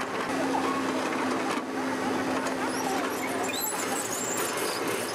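Farm tractor engines running on a busy earthworks site, a steady engine hum under general machinery noise, with short high chirps scattered through.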